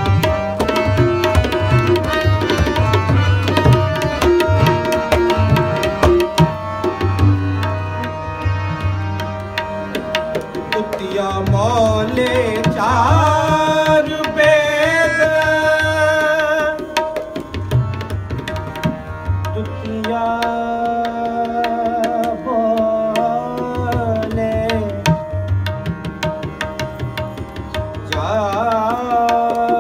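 Tabla playing a continuous rhythmic accompaniment in Sikh kirtan, with deep resonant bass-drum strokes and crisp treble strokes. Above it runs a sustained melodic line that bends and wavers in ornamented phrases around the middle and again near the end.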